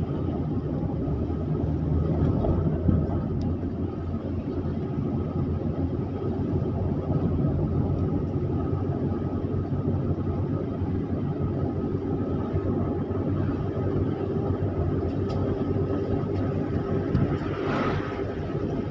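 Car engine and tyre noise heard from inside a car driving up a winding mountain road: a steady low drone with a faint constant hum. A brief hiss swells and fades near the end.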